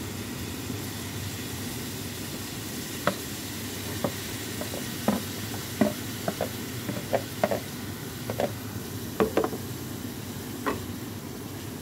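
Wooden spoon scraping sliced bitter gourd off a metal plate into a wok and stirring it with shrimp, knocking against plate and pan in a string of short sharp clicks. This is heard over a steady sizzle from the pan.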